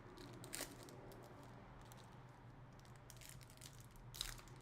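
Faint handling of trading cards and foil pack wrappers: a brief rustle about half a second in and another near the end, over a low steady hum.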